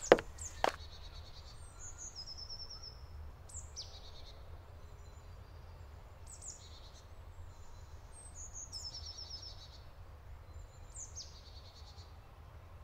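Woodland birds singing: short high chirps and quick trills repeating every second or two, over a steady low rumble. Two sharp clicks right at the start.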